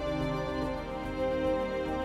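Background music with soft, sustained held tones.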